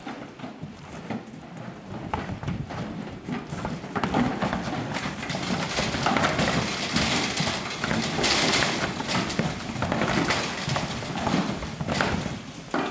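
Highland cattle hooves clattering and thudding on a livestock trailer's ramp as the herd comes down, an irregular run of knocks that grows louder about four seconds in.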